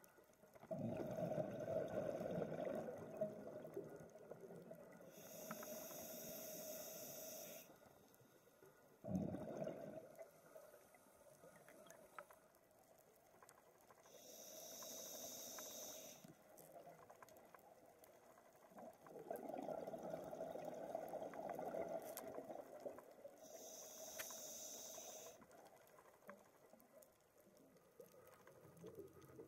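Scuba diver's regulator breathing recorded underwater: a bubbling rush on each exhale alternates with a shorter, higher hiss on each inhale. Three breaths come slowly, several seconds apart.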